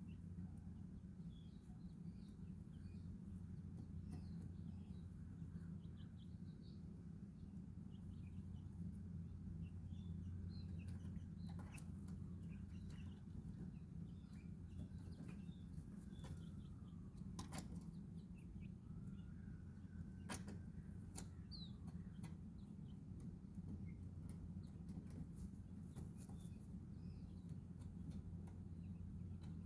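Baby chicks peeping in soft, scattered high chirps, over a steady low hum. Two soft drawn-out calls come in the middle, and a few sharp taps there are the loudest sounds.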